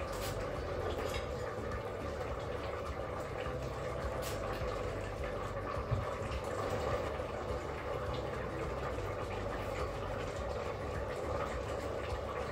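Broth with noodles boiling steadily in a Crockpot Express multicooker pot on its simmer setting, with a few light clicks of metal tongs, the clearest about six seconds in.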